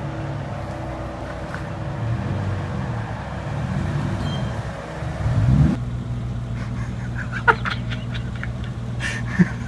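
Car engine running as a sedan drives up and stops at the kerb. Its pitch rises briefly about five and a half seconds in, then it settles to a steady idle. Two short sharp knocks come later, the second near the end.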